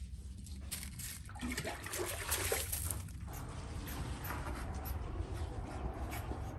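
Footsteps crunching on gravel, then water poured from a jug trickling onto a raised garden bed, over a steady low hum.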